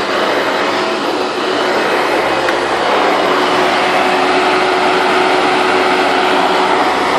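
Late-1990s Hoover Bagless twin-chamber vacuum cleaner running steadily, a loud even rush of air with a constant motor hum.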